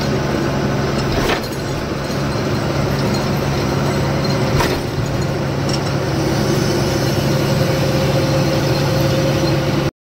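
Lorry's diesel engine running with a steady low hum and a few faint clicks. The sound drops out abruptly for a moment near the end.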